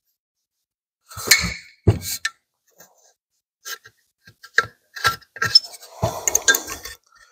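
Scattered light clicks and small metallic clinks, with a sharper knock about two seconds in and a short scraping sound near the end: a gasket being trimmed flush with the edge of a vacuum fuel tank's metal can.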